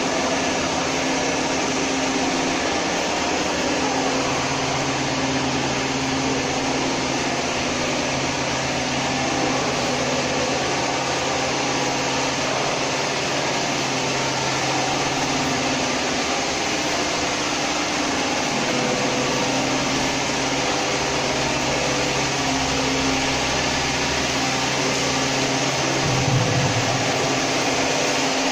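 Steady machinery noise: an even, loud hiss with a constant low hum running underneath, unchanging throughout.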